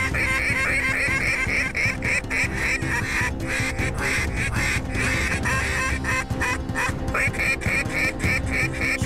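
Ducks quacking in fast, repeated series throughout.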